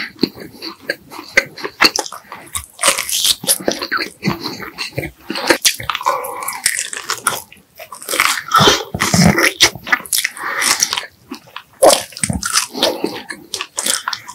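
Close-miked eating sounds: a person biting and chewing food, with irregular wet smacks, sticky mouth clicks and a little crunch, pausing briefly a couple of times.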